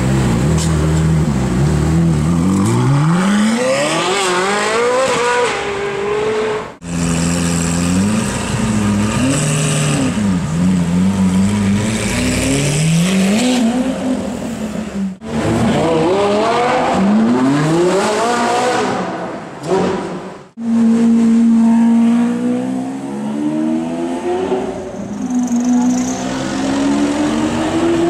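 Several supercar engines in turn, revving and accelerating hard, the pitch climbing through each gear and dropping back at each shift: a Ferrari 458's V8 first, then Lamborghini Aventador V12s.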